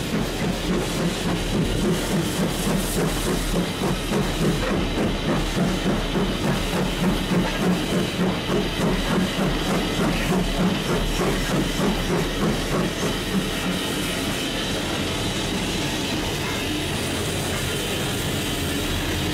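BR Standard Class 2MT steam locomotive 78022 heard from its own footplate as it runs slowly along a station platform. It gives a regular rhythmic beat with steam hiss, which evens out into a steadier sound over the last few seconds.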